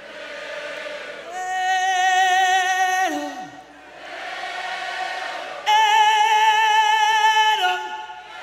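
Live call-and-response sing-along: a lead singer holds a long note into a microphone that ends in a falling slide, then a second, higher and louder held note. Between and after his phrases a large crowd sings the line back as a blurred mass of voices.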